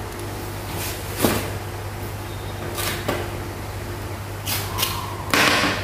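Tableware being handled on a table: a few short knocks and clatters of dishes and a food container, with a longer, louder clatter near the end. A steady low hum runs underneath.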